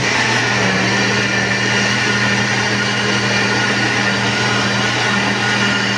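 Countertop electric blender running steadily at one speed, a low hum under a loud whir, as it blends a thin liquid batter of orange juice, oil, sugar and eggs.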